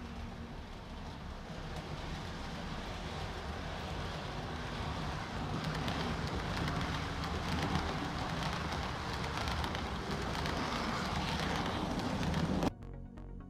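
Roco H0-scale ICE 2 model train running along the layout track: a steady rolling rumble of wheels on rails with motor hum, growing louder as it approaches. It cuts off suddenly near the end.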